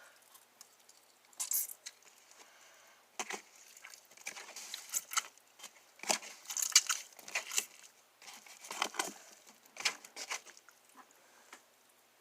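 Homemade slime squeezed and worked by hand, giving irregular runs of wet squishing and crackling pops with short pauses between.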